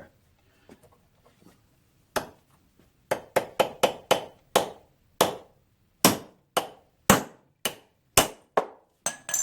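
Hammer striking a drift punch to drive a seized needle valve out of a cast-iron fuel mixer on an International engine: a few faint taps, one sharp blow about two seconds in, then a run of about fifteen sharp, ringing blows at roughly two a second.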